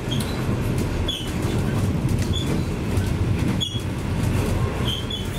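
Passenger train rolling along the line, heard from inside a carriage: a steady rumble of wheels on track, with brief high squeaks recurring about every second.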